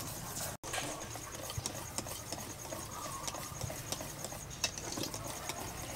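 Wire whisk beating a thick batter in a stainless steel bowl: irregular clicks and scrapes of the wires against the metal. Under it, a steady, evenly pulsed high chirping of insects.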